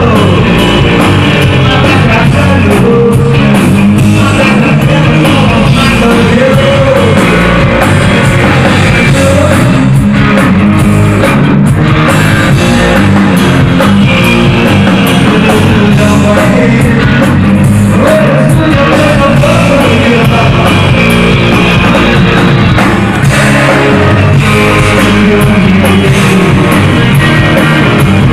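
Rock band playing live: electric guitars and drum kit, with a man singing. Loud and dense, as heard from the audience.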